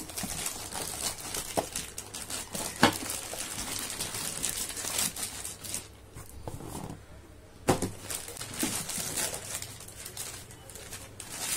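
Plastic bubble wrap and cardboard packaging crinkling and rustling as a pan is unwrapped and lifted out of its box, with a few sharp knocks, the loudest about 3 seconds and 8 seconds in.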